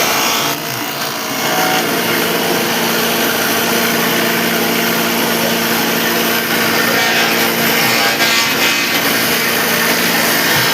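Large electric wood planer running steadily with a constant motor hum, its cutter head shaving wood.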